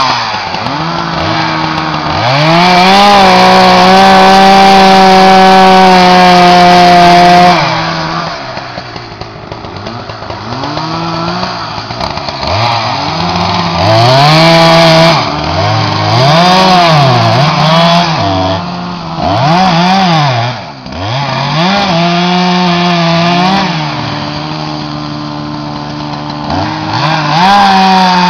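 Husqvarna two-stroke chainsaw engine being revved: it climbs to full throttle and holds for about five seconds, drops back to idle, then gives a string of quick throttle blips, another short hold, and revs up again near the end.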